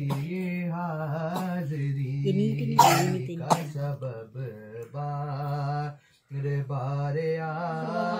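Unaccompanied naat recitation: a voice holding long, drawn-out notes of the devotional chant without clear words, breaking off briefly about six seconds in. Two short sharp sounds cut in about three seconds in.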